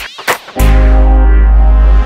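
Electronic background music: a falling synth sweep, then a loud, deep bass note held from about half a second in that stops abruptly.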